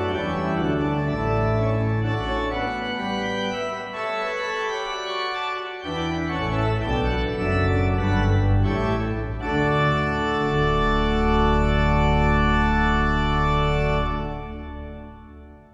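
Two-manual digital organ playing sustained chords over deep bass notes, ending on a long held final chord that is released near the end and dies away.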